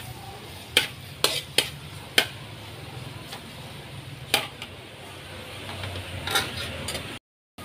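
Metal spatula stirring chopped garlic in a wok, scraping and clinking against the pan, with about six sharp clinks. The sound cuts out briefly near the end.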